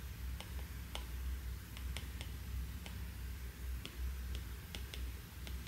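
Apple Pencil Pro tip tapping on the iPad Air's glass screen: about a dozen light, sharp clicks at an irregular pace, over a low steady hum.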